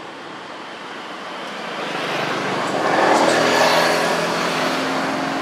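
A motor vehicle passing close by: a steady engine hum with road noise that grows louder over the first three seconds, then holds.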